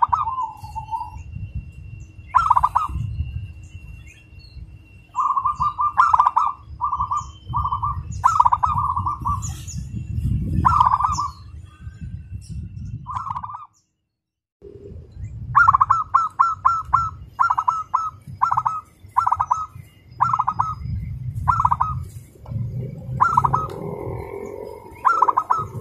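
Zebra dove (perkutut) cooing: short rattling coos near the same pitch. They are spaced out at first, drop out briefly about halfway, then come back as a fast run of many coos in close succession. A low background rumble runs underneath, with faint high chirps.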